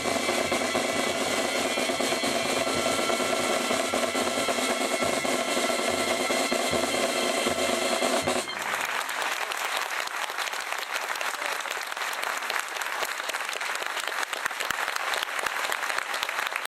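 Asturian pipe band of bagpipes (gaitas) with snare and bass drums playing the final bars of a tune, which stops sharply about halfway through; the crowd then applauds.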